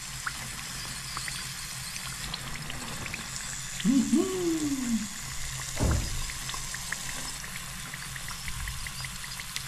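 Flour-coated chanterelle mushrooms deep-frying in oil: a steady sizzle with fine crackling pops. A brief pitched vocal sound comes about four seconds in, and a single knock just before six seconds.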